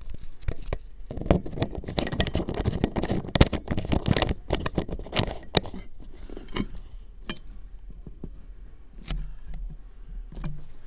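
Handling noise of a camera being moved and set in place: a busy run of rattling clicks, knocks and scrapes for a few seconds, then a few scattered clicks.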